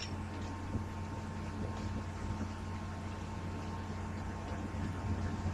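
Steady low hum with a faint hiss of background noise, and one faint click just under a second in.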